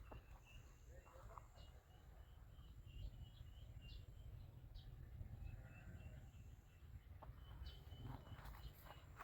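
Near silence: faint outdoor ambience with small birds chirping in short, high, repeated notes and a faint steady high buzz.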